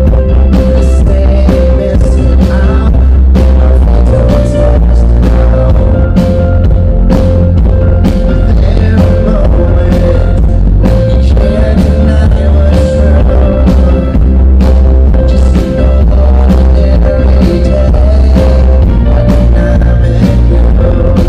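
Live band playing loud rock-pop music at a sound check, with drums striking a steady beat over heavy bass and a held note.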